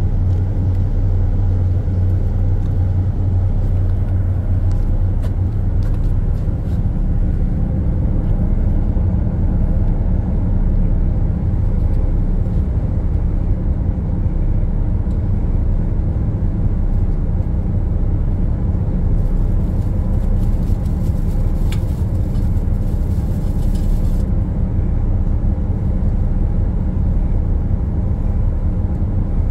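Ship's machinery running: a steady, unchanging low rumble with a deep hum, heard on the open deck.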